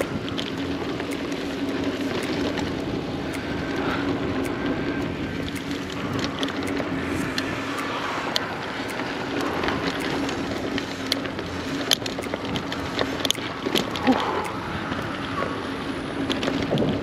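Giant Talon 4 mountain bike being ridden on a dirt trail: steady rolling noise with a low hum, and frequent sharp clicks and rattles as the bike goes over bumps.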